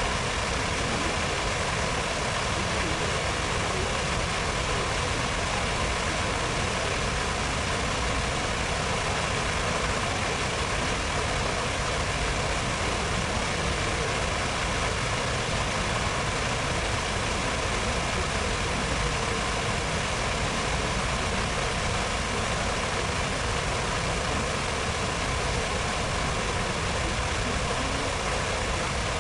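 Steady, even rush of the reflecting-pool fountains' splashing water, with no breaks or changes.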